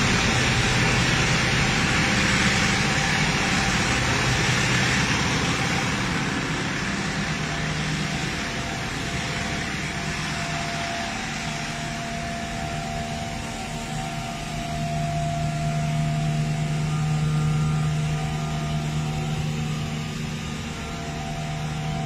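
Engine and vacuum pump of a septic pumping truck running steadily while sucking out a septic tank through the hose: a continuous mechanical hum with a low drone that grows stronger in the second half.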